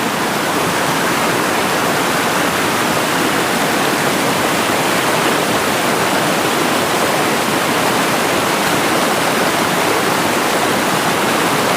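Rushing river water, a steady wash of noise.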